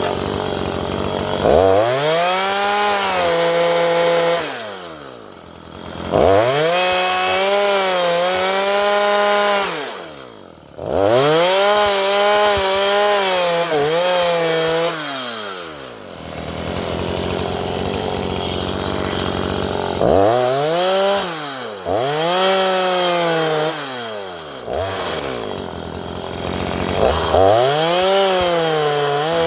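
Stihl MS 162 two-stroke chainsaw ripping a wooden fence post lengthwise: it revs up about six times, the engine pitch sagging under load during each cut, and drops back to idle between passes.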